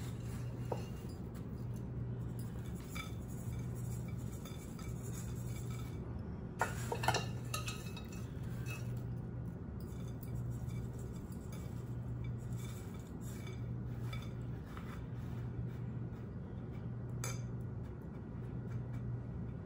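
A metal measuring cup clinking and scraping against glass as crushed vanilla wafer crumbs are scooped out of a glass measuring jug and scattered into a glass trifle bowl. The clinks come now and then, a little louder about six and a half seconds in, over a steady low hum.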